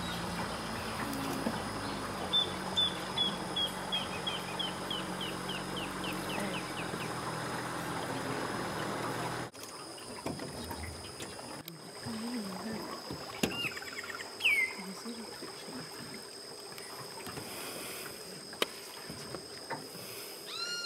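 A boat's motor idles steadily, low and even, while a bird gives a descending run of about a dozen short, quickening notes. About halfway through, the motor sound cuts out, leaving quieter riverside ambience: a steady high insect-like hum, a few brief bird calls, and a short rising-and-falling call right at the end.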